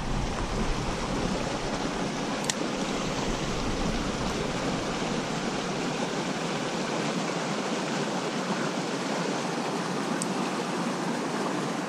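Water of a small creek running steadily, an even rushing babble.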